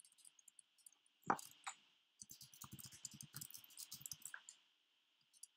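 Computer keyboard typing, faint: one louder keystroke about a second in, then a quick run of keystrokes lasting about two seconds, over a faint steady hiss.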